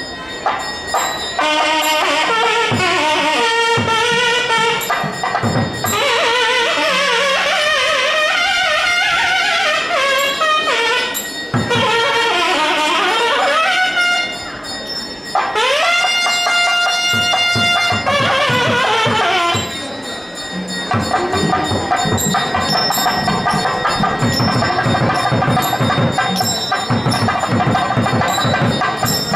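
South Indian temple music on nadaswaram and thavil. A reed-pipe melody winds and bends through the first half, and about halfway a note glides up and is held. Fast, steady drumming then takes over to the end.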